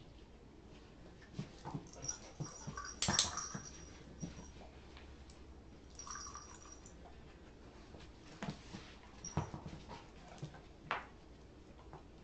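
Weimaraner whining in high-pitched whimpers, in two spells of about a second each. Short knocks and thumps are scattered around the whines, and the loudest is a sharp click about three seconds in.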